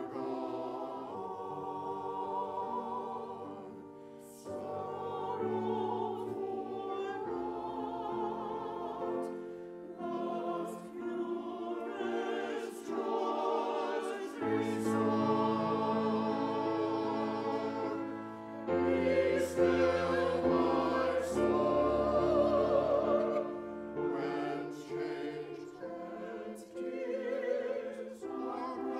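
Small mixed church choir singing an anthem with grand piano accompaniment, held notes with vibrato over a moving bass line, swelling louder about two-thirds of the way through.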